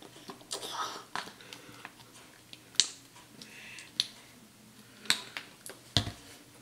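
Plastic squeeze bottles of washable paint being squeezed and handled over a paper plate: a string of sharp clicks and small pops about once a second, with a duller knock about six seconds in.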